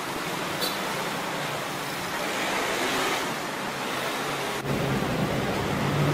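Street traffic noise: a steady rushing hiss with a low hum of small motorbike and car engines under it. About four and a half seconds in the sound changes abruptly and the engine hum gets louder.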